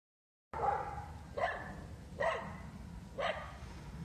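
A puppy barking: four short, high barks a little under a second apart, over a steady low background rumble.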